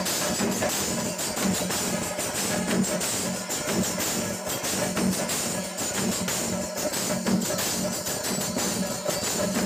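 Kerala chenda melam: a massed troupe of chenda drums beating a dense, continuous rhythm, with ilathalam bronze hand cymbals clashing on every beat over it.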